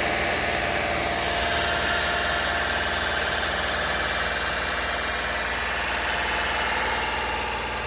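Toyota 2GR-FE 3.5 L V6 engine idling steadily under the open hood while its cooling system is bled of air.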